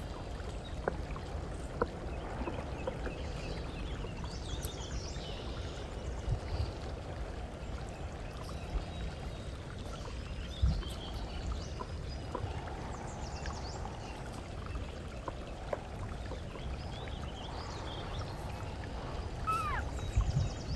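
Steady rushing noise with a low rumble, broken by scattered small clicks and a few faint, short, high chirps.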